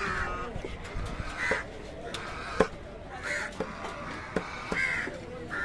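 Crows cawing repeatedly, several harsh caws about a second and a half apart. Between them come sharp knocks of a knife blade striking a wooden chopping block as fish is cut, the loudest about two and a half seconds in.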